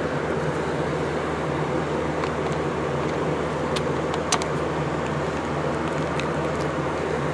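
A steady mechanical hum with a low drone, and a few light clicks from handling a plug or tester about two and four seconds in.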